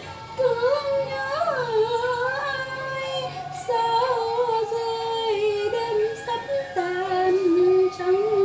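A woman singing solo, a slow melody in long held notes with small turns and bends in pitch.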